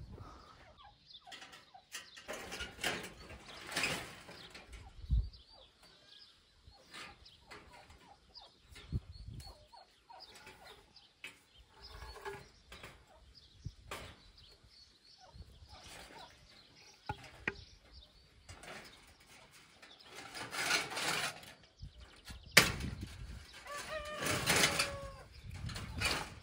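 Scraping, rattling and knocks of a rusty corrugated metal sheet and a wooden plank being handled and propped against a cinder-block wall, in several bursts, with one sharp knock a few seconds before the end.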